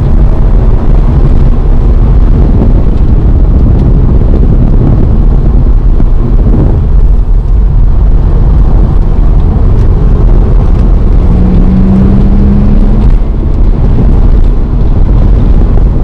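Audi RS4 B5's 2.7-litre twin-turbo V6 running under way at a steady pace, a loud continuous low rumble with wind buffeting the microphone. A brief steady tone rises out of it about eleven seconds in.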